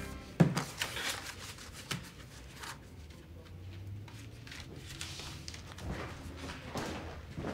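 A sharp knock about half a second in, then scattered small clicks and soft rustling, like objects being handled in a quiet room.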